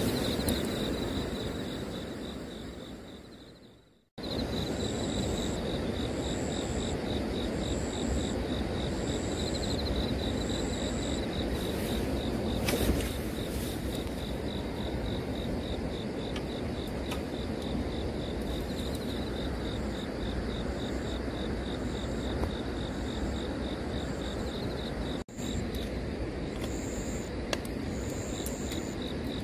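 Crickets chirping in a fast, steady trill, with a second insect pulsing higher about once a second, over a steady background noise. The sound fades and cuts out about four seconds in, then comes back, with another brief dropout near the end.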